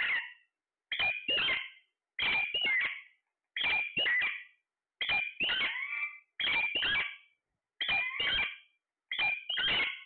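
Alexandrine parakeet calling over and over: about eight loud, harsh double or triple calls, one roughly every second and a half.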